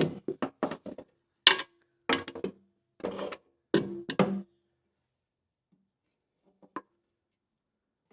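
A quick series of about a dozen clanks and knocks, some briefly ringing, as metal parts and tools are handled, then a single small click near the end.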